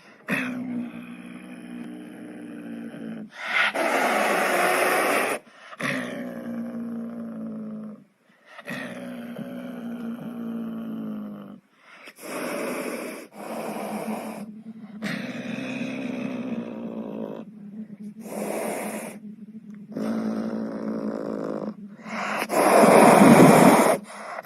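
Wild cat growling in a string of drawn-out calls, each a second or two long, with a few harsh hissing snarls. The loudest snarl comes near the end.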